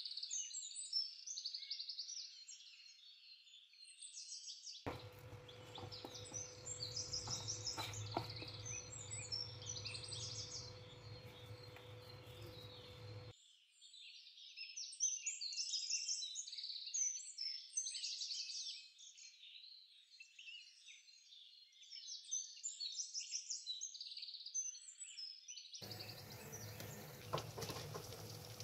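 Birds singing without pause, a dense chatter of short high calls. From about five to thirteen seconds in, and again near the end, a low steady hum joins beneath. Near the end, oil sizzles as battered pakoras deep-fry.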